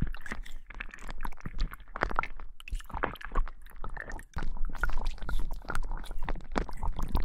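Slime being squished and worked close to a binaural microphone, a dense run of irregular wet clicks and squelches.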